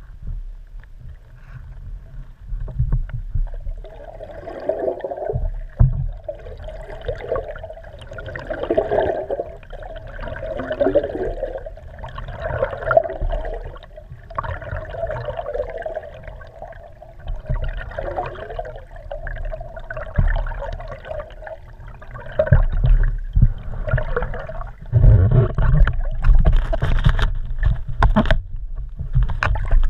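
Water sloshing and gurgling against a GoPro's waterproof housing mounted under a moving kayak, heard muffled from underwater, swelling roughly every two seconds with the paddle strokes over a steady low rumble. A few sharp knocks come near the end.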